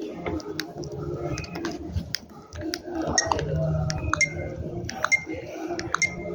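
Repeated light clinks and clicks of dishes and glassware.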